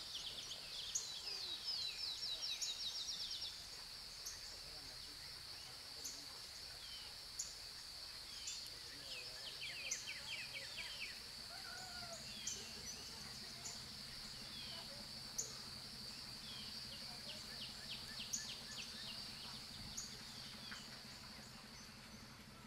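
Small birds chirping and trilling in the trees, short high calls every second or two and quick trills, over a steady high-pitched insect drone.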